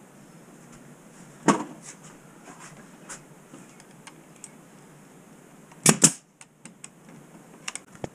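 Pneumatic brad nailer firing brads into a pine frame: two sharp shots in quick succession about six seconds in. There is a single sharp knock about a second and a half in, and a few light clicks near the end.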